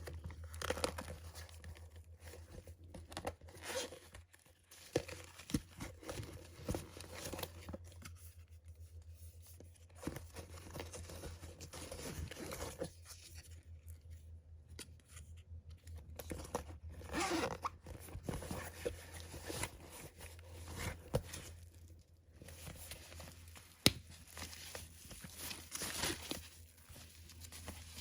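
Packaging being handled and torn open: irregular crinkling, rustling and tearing of paper and plastic wrapping, with one sharp click past the middle. A steady low hum sits underneath.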